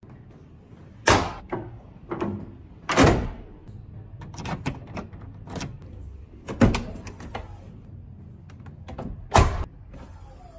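Four loud thunks, roughly two to three seconds apart, with lighter clicks and knocks between them.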